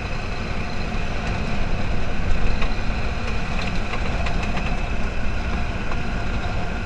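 Open off-road buggy driving at speed on a dirt track: its engine running steadily under a constant rumble, with occasional short knocks and rattles from the vehicle.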